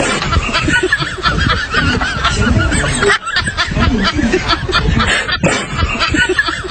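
Continuous snickering, chuckling laughter, broken by two brief pauses about three seconds and five and a half seconds in.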